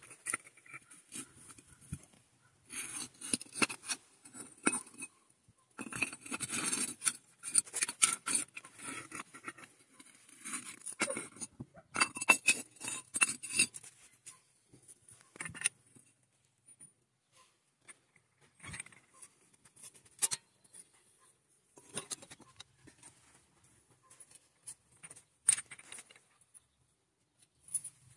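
Metal parts clinking and scraping in quick clusters of sharp clicks, busy for the first half and then only a few scattered knocks.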